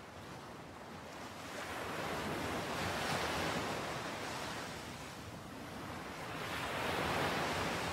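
Sea waves washing onto a shore, the rush of surf swelling twice, about three seconds in and again near the end.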